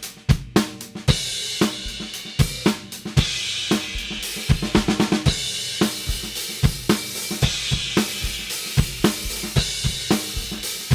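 Drum kit played with Istanbul Mehmet Nostalgia cymbals: kick and snare strikes under crashing, washy cymbals that open up about a second in, with a quick fill in the middle.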